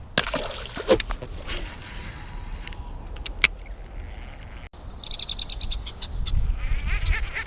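Agitated birds calling, with a rapid run of high chirps about five seconds in and more notes near the end. There are a few sharp clicks in the first few seconds, over a low rumble of wind on the microphone.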